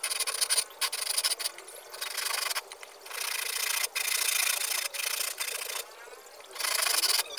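Hand saw cutting through a teak board, in uneven back-and-forth strokes with short pauses between runs of strokes.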